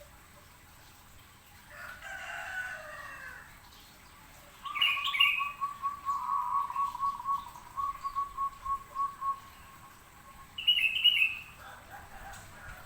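Zebra dove (perkutut) cooing: a long run of quick, evenly paced notes at one pitch lasting about five seconds, with short higher chirps just before and just after it.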